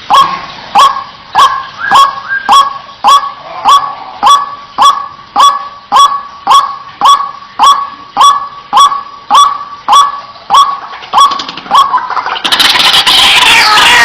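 White-breasted waterhen calling a steady series of short "kwak" notes, about two a second, each dropping sharply in pitch. About twelve seconds in, a louder, dense tangle of overlapping calls takes over.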